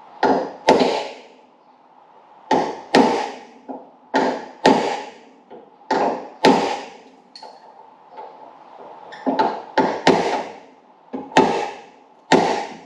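A heavy hammer striking a metal drift to drive out a stuck Hillman Imp door hinge pin: about fifteen hard, irregular blows, often in quick pairs, each ringing briefly.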